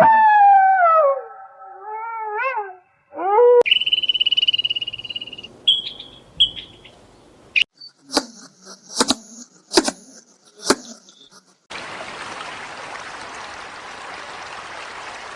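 A run of different animal sounds cut one after another: a pitched call that falls and wavers, then a high steady whistling tone, then a few sharp short calls, then a steady hiss.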